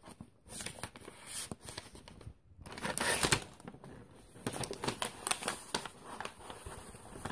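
Paper wrapping and snack packaging rustling and crinkling as they are handled in an open cardboard box, in irregular bursts, loudest about three seconds in.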